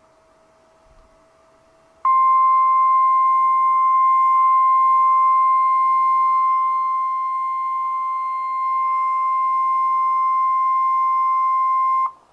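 Emergency Alert System attention tone for a severe thunderstorm warning: the NOAA Weather Radio single 1050 Hz alarm tone. It is one steady, loud, high tone that starts suddenly about two seconds in, sounds for about ten seconds and cuts off, after a faint low hum.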